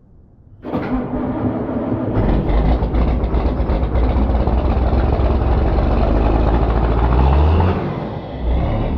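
A heavy vehicle's engine running loudly with a deep rumble; near the end its pitch rises briefly, then falls away.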